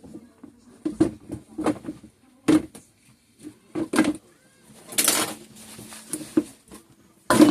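A series of irregular taps and clicks, with a short scraping noise about five seconds in.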